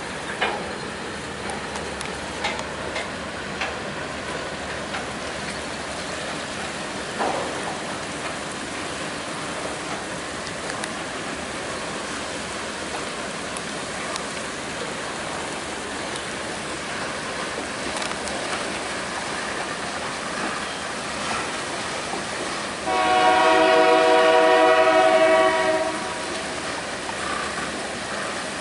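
Freight cars of a Canadian Pacific train rolling past: steady wheel noise with scattered clicks over the rail joints. About 23 seconds in, a locomotive air horn sounds one long blast of about three seconds, the loudest sound.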